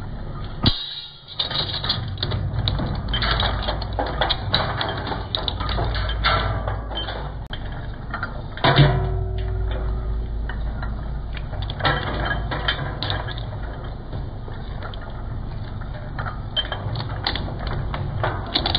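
Twin-shaft shredder running, its cutter discs crunching and snapping through an electrical power cable over the steady hum of the motor, with irregular cracks throughout and one sharp loud crack near the middle.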